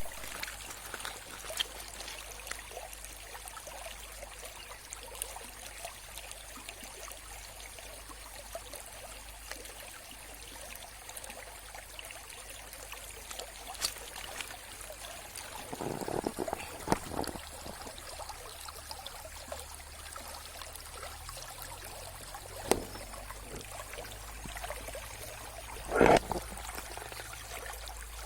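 Mountain river water flowing steadily, a continuous trickling pour. A few brief louder sounds come about halfway through and again near the end.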